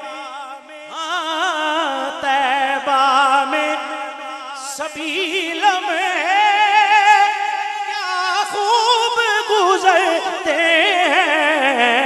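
A man singing a naat, drawing out long wordless melismatic notes with heavy, wide vibrato. The melody climbs higher about five seconds in and slides back down near the end.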